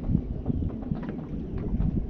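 Wind buffeting the microphone as a steady low rumble, with small waves slapping irregularly against the hull of a bass boat.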